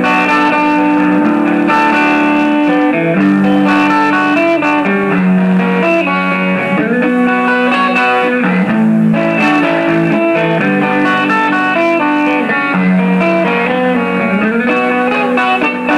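Electric guitar playing a slow melodic intro of held, ringing notes, some sliding in pitch, through an amplifier.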